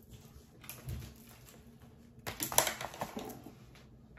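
Clicks, rattling and rustling as a leather shoulder strap is unclipped from a handbag: a few small clicks about a second in, then a louder cluster of clicks about two and a half seconds in.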